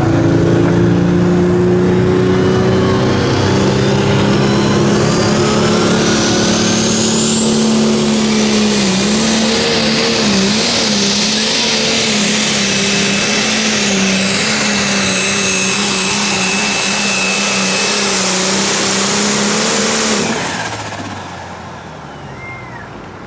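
Pulling tractor's engine running hard at high revs during a pull, a loud steady drone that wavers briefly about ten seconds in. Near the end it drops away sharply.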